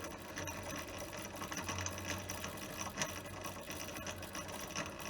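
Water well pump running steadily with a hum, building system pressure toward its pressure-switch cut-out.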